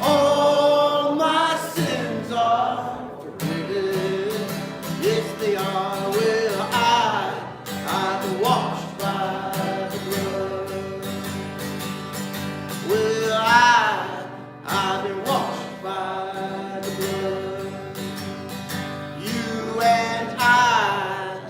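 Voices singing a worship song to a strummed acoustic guitar, sung notes held with vibrato over the chords.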